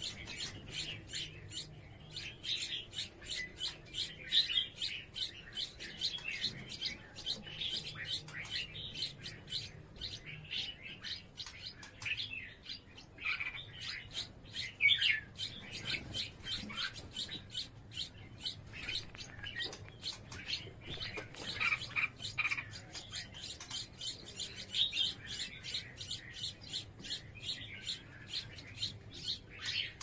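Red-whiskered bulbul nestlings begging to be fed by a parent at the nest: a rapid, continuous run of high chirps, several a second.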